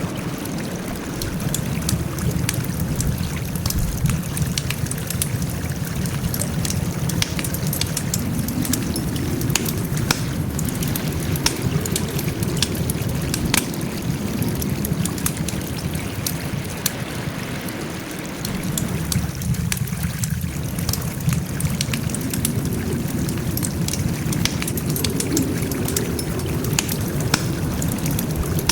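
Wood fire burning, a steady low rush of flames with frequent sharp crackles and pops from the burning wood.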